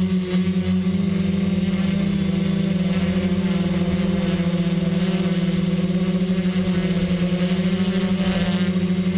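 XAircraft X650 V4 quadcopter's electric motors and propellers droning: a steady low hum with a hiss above it, holding an even pitch.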